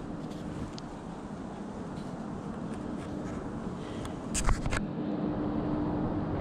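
Steady outdoor background rush with a faint low hum throughout, broken about four and a half seconds in by a quick cluster of sharp knocks.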